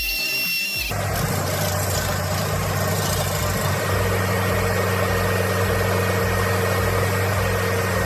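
A heavy machine's engine running steadily with a constant low hum, starting about a second in.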